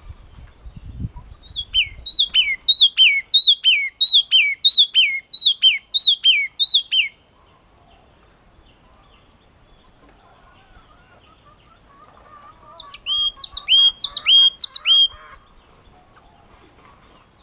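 Caged crested tit (chi chi mào, a Parus tit) singing a loud run of about a dozen repeated downslurred notes, roughly two a second, for about five seconds. After a pause of several seconds it sings a second, shorter run of about five notes.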